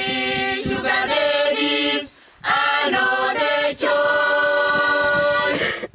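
A mixed group of young men and women singing together unaccompanied, holding long notes, with a brief break for breath about two seconds in.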